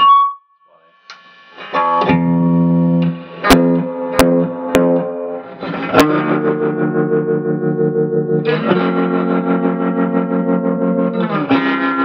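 Electric guitar played through the distortion of a Yamaha G100-410 100-watt 4x10 combo amp: heavily distorted chords, each left to ring, changing twice near the end. After a brief pause, the first chord comes in about two seconds in. A few sharp clicks sound in the middle.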